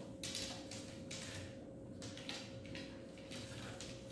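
White plastic tent-frame sticks and connectors being pushed together and slid over a tiled floor, giving a few short scrapes and light knocks.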